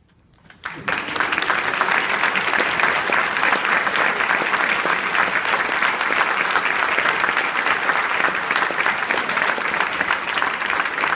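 Near silence, then audience applause breaks out suddenly under a second in and carries on at a steady level.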